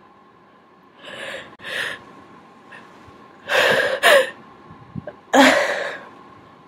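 A person sneezing, brought on by tickling the nose with a cotton swab: two short gasping inhales about a second in, then two loud sneezes about two seconds apart.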